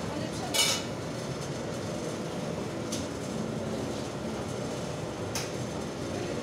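Steady hum of a fast-food restaurant's counter and kitchen area, with a short clatter about half a second in and a couple of brief clicks later on.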